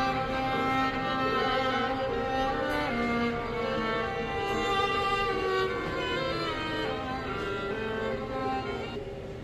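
A Samsung Galaxy Z Fold6 ringtone playing: a melodic tune of several sustained notes at once, with a string-like sound, easing off slightly near the end.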